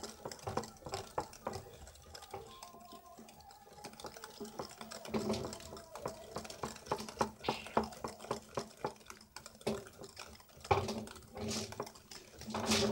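Wire whisk beating eggs and sugar in a glass bowl: rapid, uneven clicking of the metal tines against the glass with the liquid sloshing, the mixture being beaten until it turns pale.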